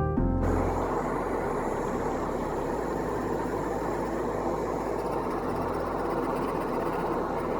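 Steady machine noise with a low hum, holding at an even level; music cuts off just after the start.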